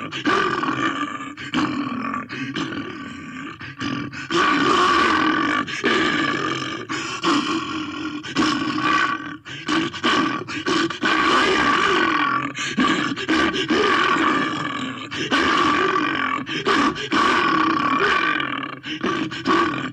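Bear growling and roaring in a long series of loud, rasping growls, each lasting one to a few seconds with short breaks between them.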